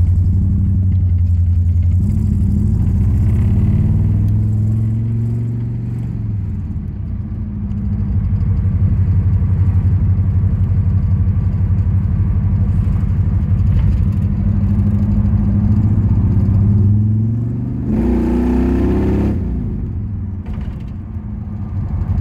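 1976 Chevrolet Camaro's cammed engine heard from inside the cabin while driving: a low purr that rises and falls with the throttle, with a short hard acceleration toward the end.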